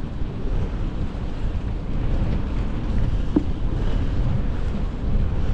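Wind buffeting the microphone of a moving bicycle, a steady low rumble, with one short squeak about three and a half seconds in.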